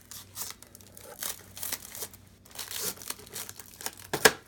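Plastic packaging crinkling and rustling as a Funko Pop in its hard plastic protector case is handled. A sharp, loud click comes about four seconds in.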